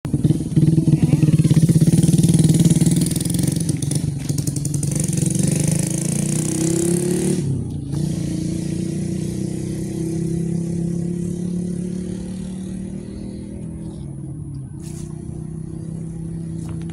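An engine running, steady and loudest at the start. Its pitch rises briefly about seven seconds in, then it carries on and slowly fades.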